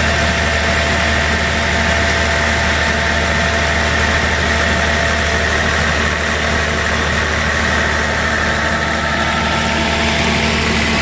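Inline six-cylinder diesel engine of a generator set running at a steady speed, supplying power for arc welding. A constant, even hum.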